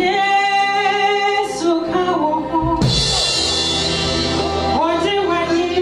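Gospel music: a singer holding long notes over drums, with a bright cymbal wash swelling about three seconds in and lasting about two seconds.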